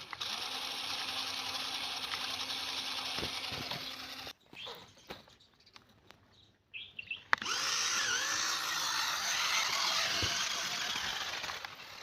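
Small electric motor and gearbox of a toy RC car whining as it drives in sand. It cuts out suddenly about four seconds in, with a few clicks during the pause, then starts up again louder about seven seconds in, its pitch wavering, before dropping away near the end.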